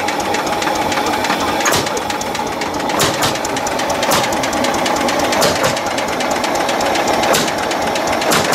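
Tractor engine running steadily with a fast, even knocking beat, a few louder knocks standing out now and then.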